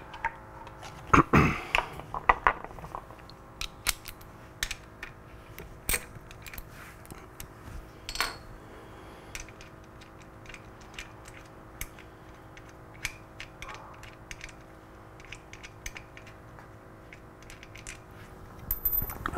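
Irregular small clicks and clinks of metal hardware and tools being handled, with a louder knock about a second in, over a steady faint hum.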